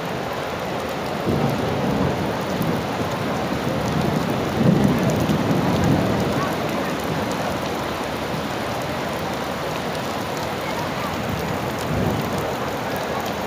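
Heavy rain falling on wet stone paving close to the microphone, a steady hiss of drops. A few low rumbling swells rise and fade, the strongest about five seconds in.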